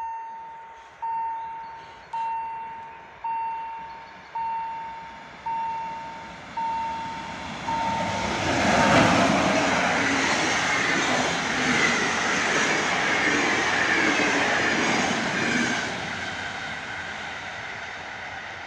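A warning bell dings about once a second, each strike ringing and dying away; it sounds like a level crossing bell. About eight seconds in, an EP07 electric locomotive and eight passenger coaches pass at speed with a loud rush and wheel clatter, and the sound fades near the end.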